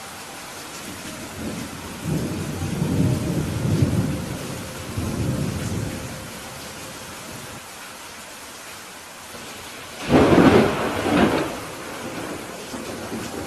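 Steady rain in a thunderstorm. A rolling rumble of thunder comes about two seconds in and fades out over a few seconds. A louder, sharper thunderclap follows about ten seconds in.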